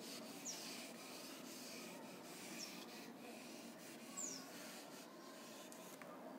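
Whiteboard duster wiping marker off a whiteboard: a faint, soft rubbing with a few short, high squeaks.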